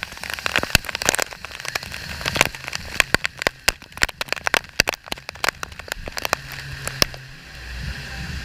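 Water splashing and spattering, with many sharp, irregular crackles for about seven seconds, then settling into a steadier rush near the end.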